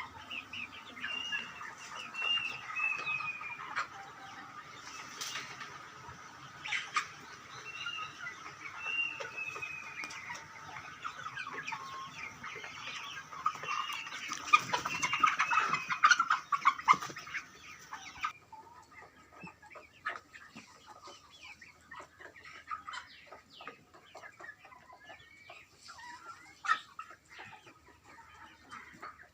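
A flock of broiler chickens calling and clucking, many short chirps overlapping with scattered clicks. The calls are busiest around the middle and drop abruptly to fainter chirps and clicks about two-thirds of the way through.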